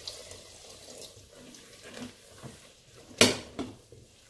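Stock poured from a stainless steel saucepan into a pot of egusi, a soft, faint trickle of liquid. About three seconds in comes a sharp knock, the loudest sound, then a smaller one.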